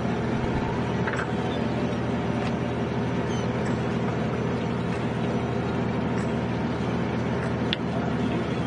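A boat's engine running steadily, a low even drone under the noise of wind and water on an open deck, cutting in abruptly. A couple of faint clicks sound over it.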